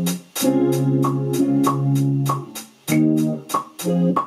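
A beat playing from a Roland SP-404 MKII sampler. A hi-hat ticks steadily, about three strikes a second, under sustained sampled chords triggered from the pads. The chords hold for about two seconds, then break into short stabs near the end.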